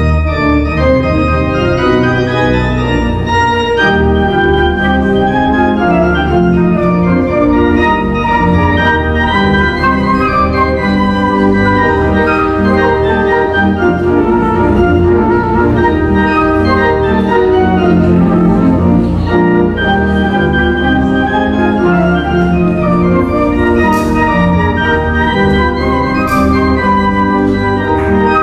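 Flute playing a melody over organ accompaniment, with sustained organ chords underneath.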